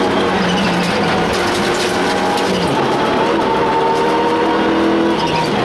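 Mitsubishi Lancer Evo 6 rally car's turbocharged four-cylinder engine heard from inside the cabin, pulling hard and rising in pitch. The pitch drops suddenly about halfway through and again near the end as it shifts up a gear.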